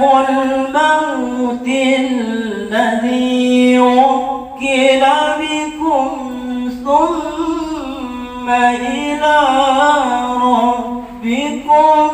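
A male qari chants a Quran recitation (tilawah) into a handheld microphone. The voice holds long, ornamented melodic phrases that wind up and down in pitch, with short breaks for breath.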